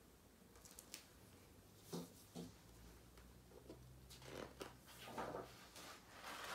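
Faint rustles and soft taps of a hardcover picture book being handled, its pages flipped and turned, a few at a time over a near-silent room.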